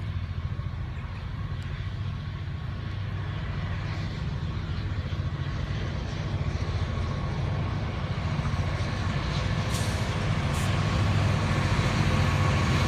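Two 82 class diesel-electric locomotives at the head of a coal train approaching, their engines a deep rumble that grows steadily louder as they near.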